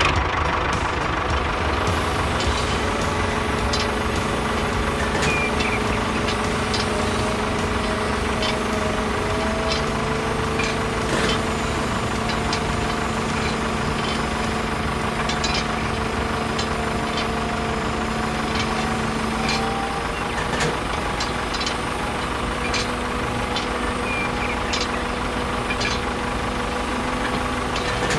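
A vehicle engine running steadily at idle, its hum holding even with a slight drift in pitch, and a few faint clicks over it.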